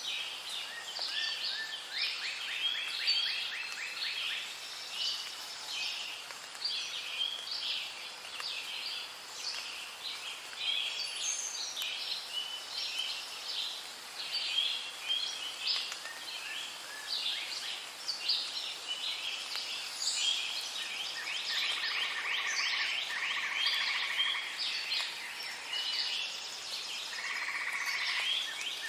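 Rainforest bird chorus: many birds calling at once in a continuous tangle of chirps and rapid trills, over a faint steady hiss.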